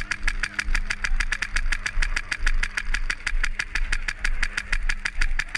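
Long unbroken burst of full-auto airsoft gun fire: sharp shots evenly spaced at about ten a second.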